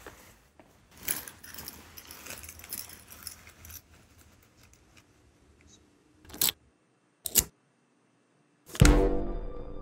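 A ring of keys jangling as it is handled, then two short sharp clicks of a key working a door lock. Near the end a sudden loud hit rings on.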